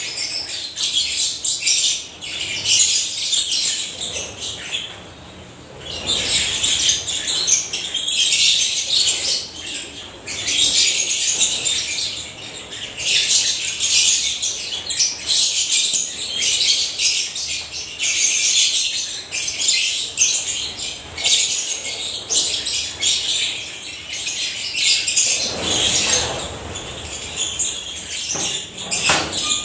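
A flock of African lovebirds chattering with dense, high-pitched chirps, easing briefly about five seconds in before carrying on.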